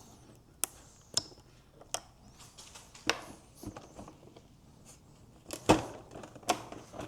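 Scattered sharp clicks and knocks of hand tools and fasteners against the motorcycle's plastic fairing as it is being unbolted, about six of them, the loudest a little before six seconds in.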